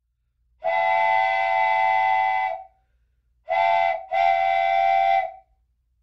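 Train horn sounding three blasts, a long one, a short one, then another long one, several steady notes at once in a chord.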